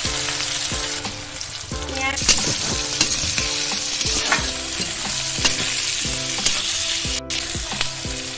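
Sliced onions sizzling in hot mustard oil in a metal kadai, with a spatula stirring them and scraping the pan in irregular clicks.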